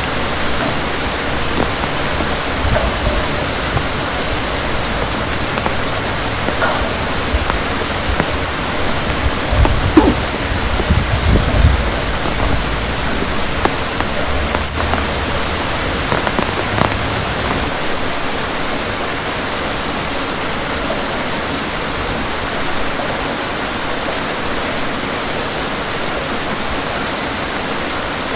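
Steady heavy rain, with a low rumble of thunder that builds over the first few seconds, is loudest about ten seconds in, and dies away by about two-thirds through.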